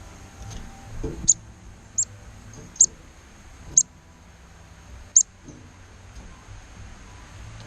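A bird giving five short, sharp, high-pitched chirps at uneven intervals, over a faint steady high whine.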